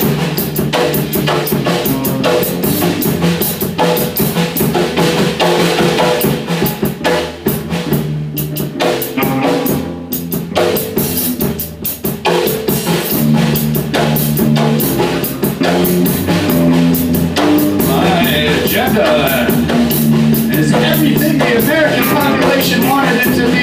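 Electric bass and drum kit jamming together: the bass plays repeated low notes over a steady rock beat on kick, snare and cymbals. The drums thin out and the music drops in level for a few seconds near the middle, then the full groove comes back.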